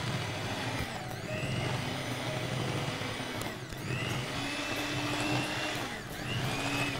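Electric hand mixer running, its twin beaters creaming butter and powdered sugar in a glass bowl. The motor's steady whine sags and picks up again about three times.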